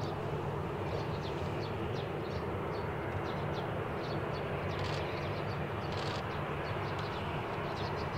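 Embraer E190-E2's Pratt & Whitney PW1900G geared turbofans running steadily at idle as the airliner taxis. Small birds chirp briefly, a few times a second, over the engine noise.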